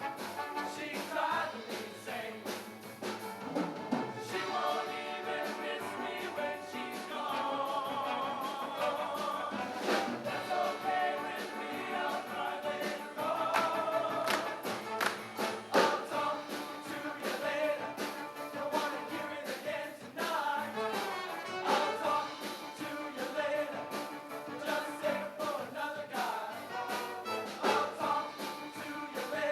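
High school show choir singing in harmony over instrumental accompaniment, with drum hits punctuating the music throughout.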